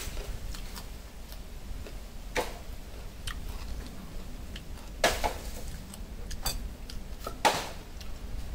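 Irregular clicks and light knocks of kitchen utensils against dishes or cookware, with louder knocks about two and a half, five and seven and a half seconds in.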